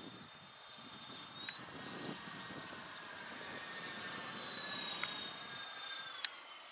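Whine of the twin 80mm electric ducted fans of a Freewing A-10 model jet flying overhead. Its pitch steps up about a second and a half in as it grows louder, then slowly sinks and drops near the end. A few sharp clicks, the loudest near the end.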